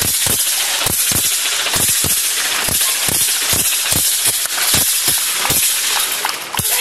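Rapid sharp clashing strikes, about three a second and slightly uneven, over a constant bright high metallic shimmer.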